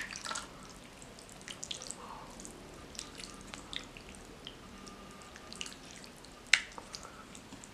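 Wooden spoon and metal fork stirring seblak, noodles and meatballs in spicy broth, in a bowl: wet squelching and dripping with small scattered clicks, and one sharper click about six and a half seconds in.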